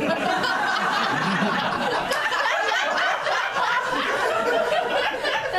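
Live audience laughing: a steady wash of many people's laughter that carries on for several seconds.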